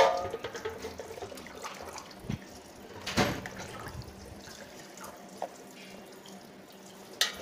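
Water dripping and trickling from a wire-mesh skimmer full of boiled genjer back into an aluminium wok of cooking water, with a sharp metal click at the start and a light knock about three seconds in.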